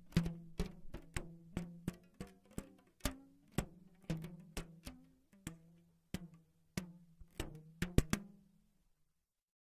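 A run of sharp percussive knocks, roughly two a second at an uneven pace, each with a short low ringing note that shifts slightly in pitch. The run stops about eight and a half seconds in.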